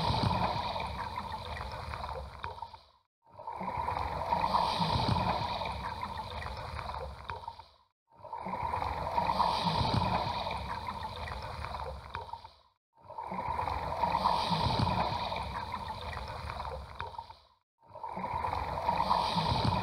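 Bubbling, gurgling water sound that comes in stretches of about four and a half seconds, each cut by a brief dropout, repeating evenly four times.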